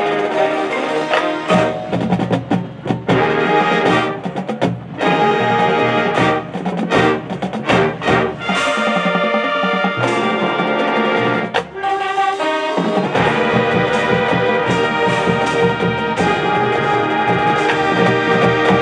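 High school marching band playing: brass over drumline and pit percussion, a run of sharp accented full-band hits, then a long held loud chord through the last third.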